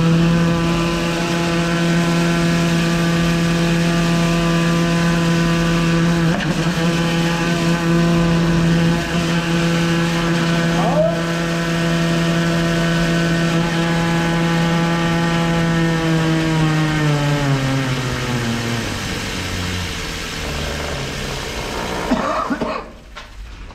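High-pressure drain-jetting machine's engine and pump running at a steady pitch, then winding down with a falling note over several seconds and stopping shortly before the end.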